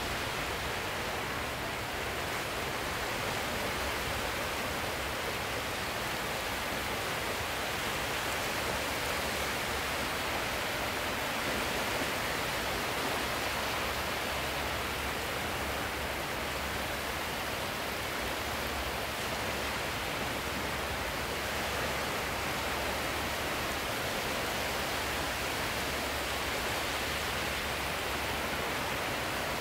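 Steady, even rushing of sea surf, without single waves standing out.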